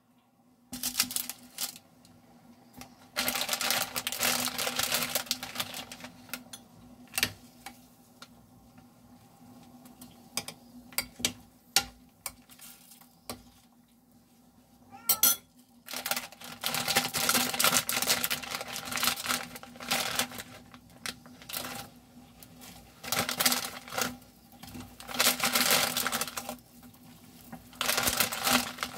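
Crinkly plastic instant-noodle packet being handled and torn open in three long stretches, with sharp single clinks of a spoon against the glass saucepan between them.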